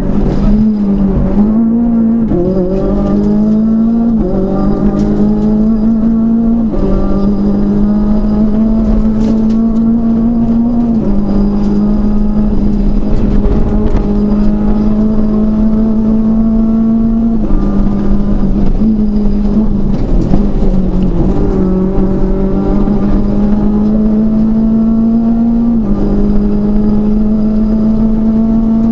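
Renault Clio RS rally car's four-cylinder engine heard from inside the cabin, pulling hard. Its pitch climbs steadily, then drops back at an upshift every few seconds, before climbing again.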